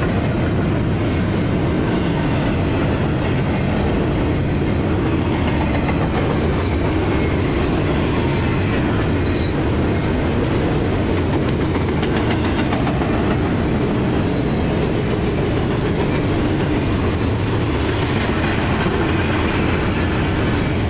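Double-stack container train's loaded well cars rolling past close by: a steady loud rumble of steel wheels on the rails, with scattered clicks as the wheels pass over the track.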